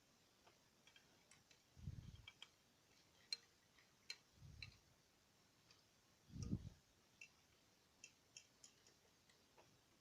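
Faint clicks and taps of plastic LEGO parts as a built model is handled, scattered and irregular, with three soft low thumps spread through.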